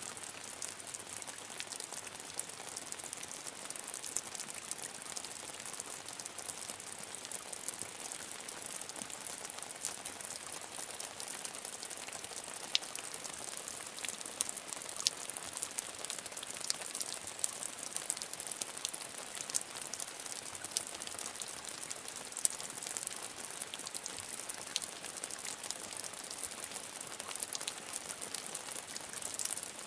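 Medium rain falling steadily, a constant hiss with many individual drops ticking sharply on a hard surface.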